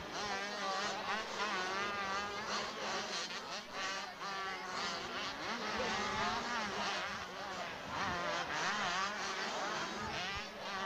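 Several 80cc two-stroke motocross bikes racing, their high-pitched engines buzzing over one another and repeatedly rising and falling in pitch as the riders rev and shift.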